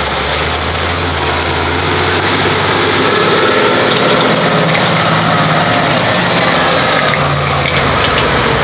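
A tractor's diesel engine running steadily under load as it tows a HE-VA Disc Roller short disc harrow through dry stubble, over the loud, even mechanical noise of the discs working the soil.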